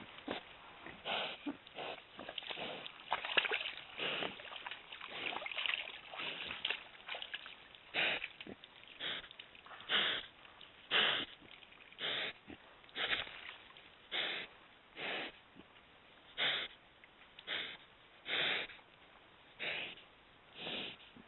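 Wild boar sniffing at close range on a trail camera's microphone: irregular snuffling and rustling at first, then short, evenly spaced sniffs about once a second.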